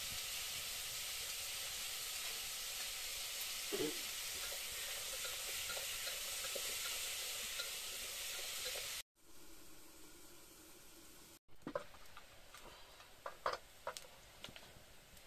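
Pot of noodles cooking over an open wood fire: a steady hiss with small crackles from the fire and the boiling pot. About nine seconds in it drops to a much quieter background with a few sharp clicks and knocks.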